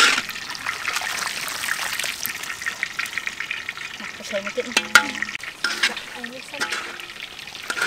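Noodles frying in a large wok of hot oil: a steady sizzle and crackle. The wire skimmer clinks against the wok a couple of times about two-thirds of the way through.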